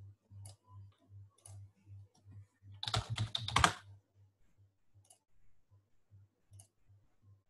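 A quick burst of computer keyboard typing about three seconds in, with a few scattered single clicks before and after, over a faint low hum that pulses about three times a second.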